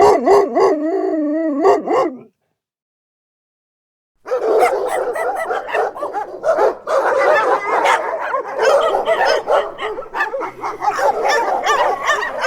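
A dog's drawn-out, wavering cry lasting about two seconds, then a short silence, then a long run of dense, continuous barking that starts about four seconds in.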